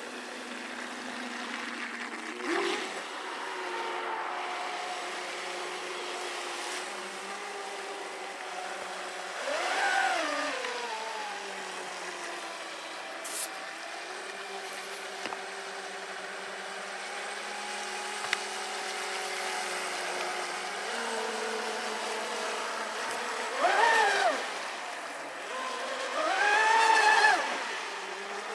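Radio-controlled speedboat's motor running steadily across the water, with three louder throttle bursts whose pitch rises and falls: one about ten seconds in and two close together near the end.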